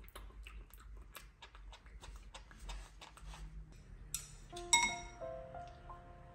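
Scattered small clicks and taps, then background music of held, ringing notes that comes in about four and a half seconds in with one sharp strike.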